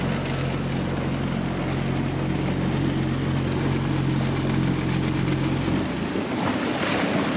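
Small outboard motor on a 12-foot inflatable boat running at a steady speed. It cuts off suddenly about six seconds in, leaving the wash of water and wind.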